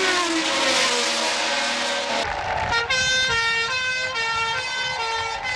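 A 1970s Formula 1 car's engine going past, its pitch falling away. About two seconds in, the sound cuts abruptly to a two-tone siren switching back and forth between two pitches.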